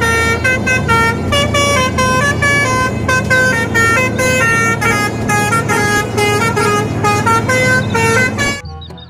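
Musical multi-tone vehicle horn, telolet-style, playing a quick tune of short notes over a steady engine drone. It cuts off shortly before the end.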